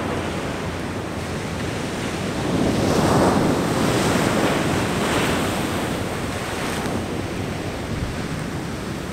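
Ocean surf breaking on a sandy beach. A wave swells to a loud wash about three seconds in and then fades, with wind buffeting the microphone.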